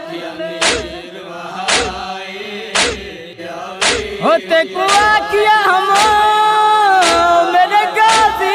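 Male voice chanting a noha, a Shia lament, over a steady beat of about one stroke a second. From about halfway the voice grows louder and holds long, wavering notes.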